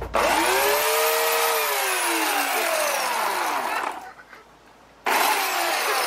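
Corded Craftsman electric chainsaw with an 18-inch bar, run in two bursts. Its motor whine rises sharply as it starts, then sinks slowly over about four seconds. A second run starts about a second later and falls away the same way.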